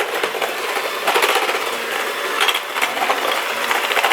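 KitchenAid electric mixer running steadily, its beaters rattling through butter and lumps of hard brown sugar in the bowl.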